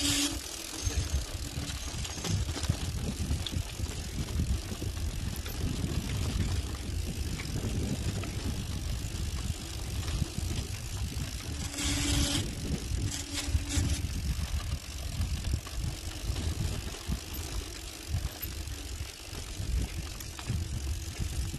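Mountain bike riding over a rough dirt track: tyre and frame noise under a heavy rumble of wind on the handlebar camera's microphone, with a brief harsher burst of noise about twelve seconds in.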